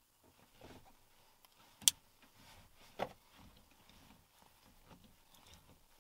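Shortened manual gear lever being moved through the gate: a sharp click about two seconds in and a second, softer clunk a second later as it goes into gear, including reverse, with faint rustling of hand and clothing.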